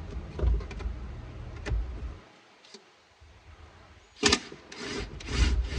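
Dash parts being worked loose by hand after the tachometer pod screws come out: a few light clicks, a sharp click a little past four seconds, then several scraping, rubbing strokes near the end.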